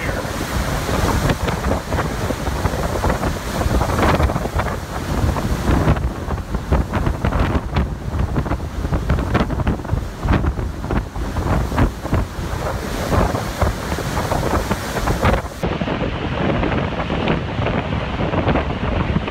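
Hurricane-force wind blowing in strong gusts and buffeting the microphone. Near the end the sound suddenly turns duller as its highest hiss drops away.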